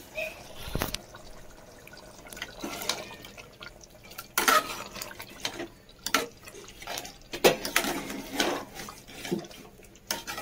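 Steel ladle stirring thick kala chana (black chickpea) curry in an aluminium pressure cooker. Wet, sloppy sounds of the gravy come in irregular strokes every second or two.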